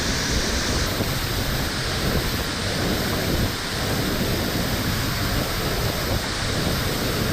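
Waterfall pouring at close range: a steady rush of falling water, with wind buffeting the microphone.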